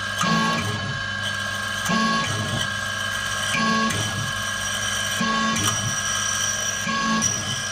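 Small CNC vertical mill peck drilling into an aluminium plate: the spindle whines steadily at a high pitch. A short whirring pulse comes five times, about every second and a half, as the drill pecks in and out of the hole.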